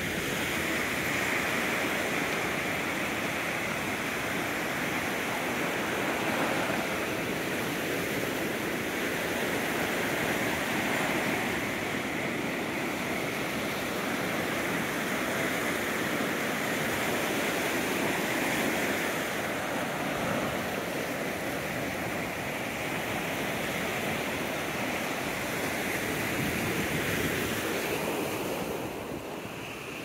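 Ocean surf on a beach: a steady wash of breaking waves that swells and eases slowly, dipping slightly near the end.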